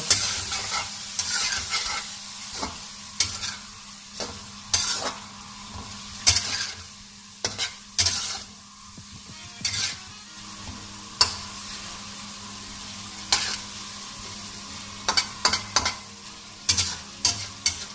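Boneless chicken frying in ghee in a kadhai being stirred: irregular scrapes of the stirring utensil against the pan, with a quick run of them near the end, over a steady sizzle.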